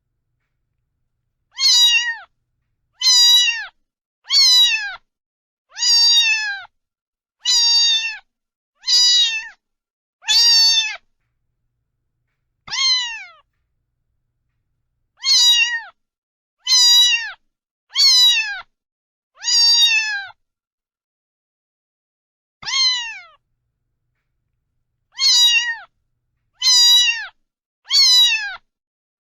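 A cat meowing over and over, about sixteen short high meows that each fall in pitch, mostly about a second and a half apart with a couple of longer pauses.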